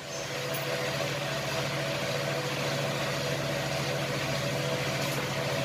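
A motor running steadily: an even low hum with a higher buzzing tone above it, unchanging throughout.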